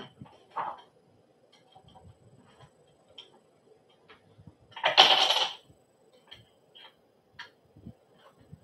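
Small clicks and ticks of a hand tool tightening screws into a bassinet's metal stand, with one louder rasping noise lasting about half a second midway.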